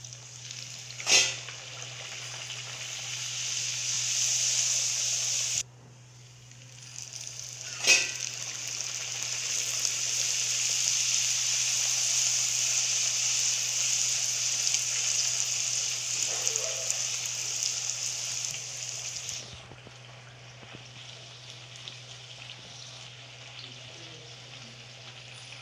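Pakwan (a maida dough disc) deep-frying in hot oil in a kadhai: loud sizzling that builds after the dough goes in, breaks off suddenly about five seconds in, then starts again and settles to a quieter sizzle near the end. Two sharp clicks, about a second in and about eight seconds in, over a steady low hum.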